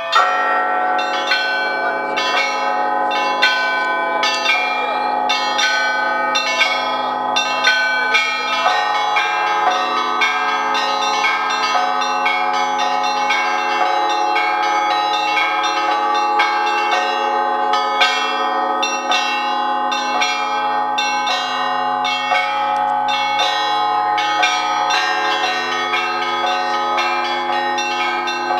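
Russian-style church bell ringing: a set of fixed bells struck by their clappers from a rope console, with a rapid, unbroken festive peal of smaller bells over the long ringing of the large bells.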